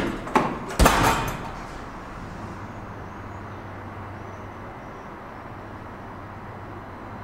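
Deve-Schindler hydraulic elevator's steel swing landing door shutting: three clunks within the first second as it closes and latches, followed by a steady low hum.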